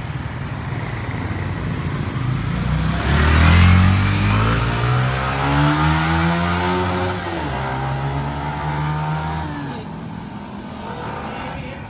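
A motor vehicle's engine passing close by on the street, loudest about three seconds in and rising in pitch as it speeds up, dropping in pitch about seven seconds in, then running steadily and fading near the end, over a steady traffic hum.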